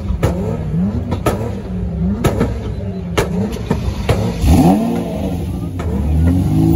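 Lamborghini engine revving in repeated short throttle blips, about one a second, each rising and falling in pitch with a sharp crack. A bigger rev comes about halfway through, and near the end it settles into a steady, held engine note.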